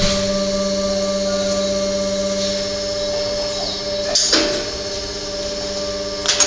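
Vertical two-station injection molding machine running with a steady whining hum, with two short sharp noises about four seconds in and again near the end as it works.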